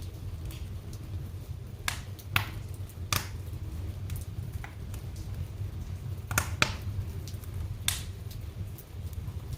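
Fire in a fireplace crackling, with irregular sharp pops, about seven of them, two in quick succession around two-thirds of the way in, over a steady low rumble.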